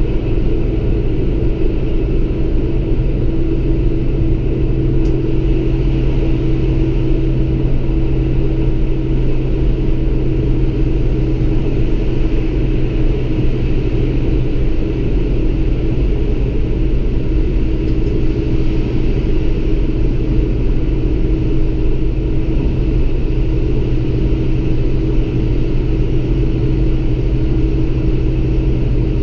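Lint 41 diesel railcar running at speed, heard from inside the driver's cab: a steady rumble of engine and wheels on rail, with a constant low drone and a held higher hum.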